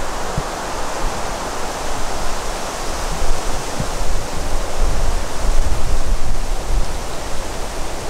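Wind rushing and buffeting the microphone: a loud, even hiss with a gusty low rumble underneath.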